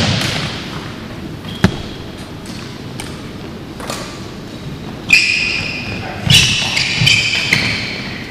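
Badminton racket strings hitting a shuttlecock with sharp cracks, one right at the start and another about a second and a half in, with lighter taps after. Court shoes squeak on the hall floor several times in the second half.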